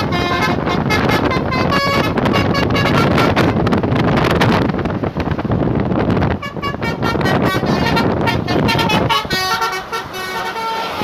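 Bus telolet horn (Basuri V3 multi-tone horn) playing a quick tune of short honked notes that step up and down in pitch, with a few seconds of dense noise in the middle before the notes return.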